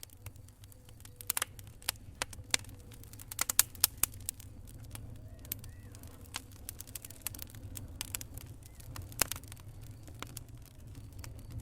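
Wood fire in a fireplace crackling, with irregular sharp pops and snaps over a steady low rumble. The loudest pops come in a quick cluster a little after three seconds in and once more near nine seconds.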